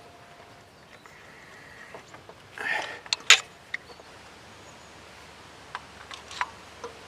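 Scattered sharp clicks and knocks of hand tools at work, with a short scraping rustle about two and a half seconds in.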